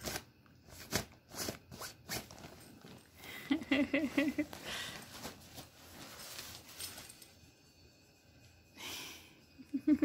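Collapsible fabric cat tunnel rustling and crinkling as a cat moves inside it and a hand pats and handles it, in irregular scratchy patches.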